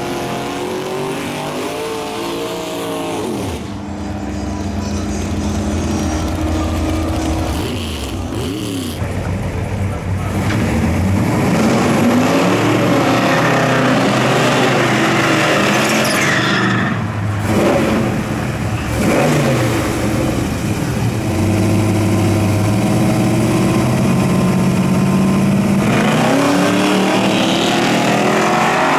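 Muscle car engines at a drag strip: cars launching and accelerating away, engine pitch climbing and falling through gear changes, with steadier stretches of engine running and revving between runs. The sound changes abruptly a few times as one car gives way to the next.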